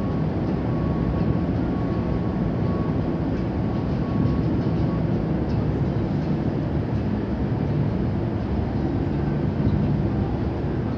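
Steady low rumble and hum of cruise ship engines and machinery, with a faint high tone that drops away about halfway through.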